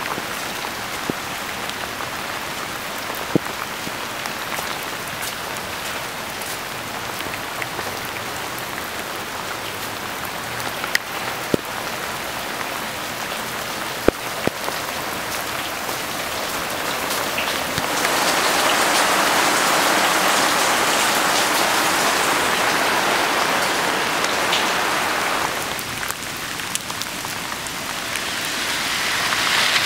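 Heavy rain falling on soaked ground and standing water: a steady hiss with scattered sharp ticks of single drops. It swells louder for several seconds past the middle, eases, then grows louder again near the end.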